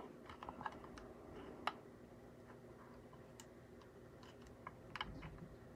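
Faint, scattered small clicks, the sharpest about two seconds in, of a clear acrylic box with a glass knob glued on top being handled.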